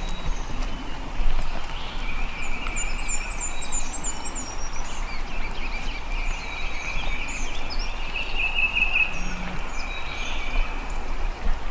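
Outdoor ambience of songbirds and a steady high trilling. Short chirps come throughout, and one bird gives a quick run of about seven high notes about three seconds in. A low rumble sits underneath.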